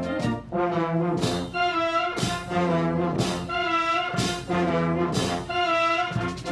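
Brass band playing music: held chords in short phrases of about a second each, with brief breaks between them.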